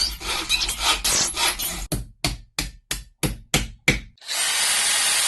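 Workshop tool sounds: a run of rasping hand-tool strokes on metal, fast at first and then about four separate strokes a second. From about four seconds in, a steady noisy machine sound with a thin high whine takes over.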